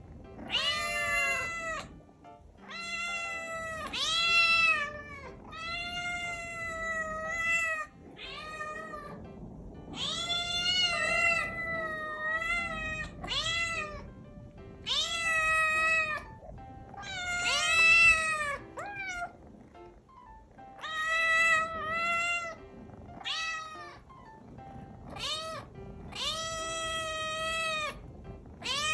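Hungry kitten meowing loudly and insistently, about fifteen long, rising-and-falling calls one after another with short pauses between them: a demand for food.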